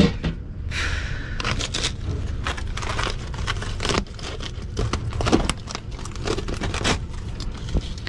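Old fiberglass duct insulation and its foil facing and tape being ripped off a duct by hand: irregular tearing and crinkling with sharp crackles.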